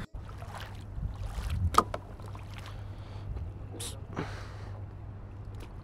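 Small wooden boat being pushed through shallow water: several short splashes and sloshes of water over a steady low rumble.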